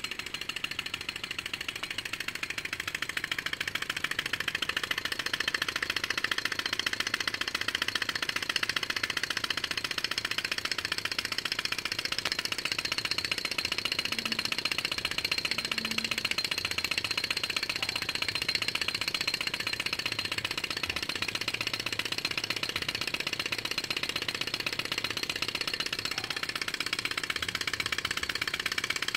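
Small homemade two-cylinder thermal-lag Stirling engine with syringe cylinders running steadily, its pistons, flywheel and belt-driven generator making a fast, even mechanical clatter.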